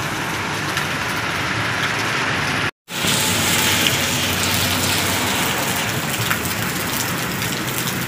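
Heavy rain pouring steadily, a dense hiss, with vehicles passing on the flooded road. The sound breaks off completely for an instant nearly three seconds in.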